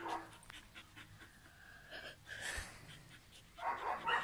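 Samoyed panting and vocalising during play: a thin, held whine about a second in, a breathy burst around two seconds, and a short voice-like call near the end.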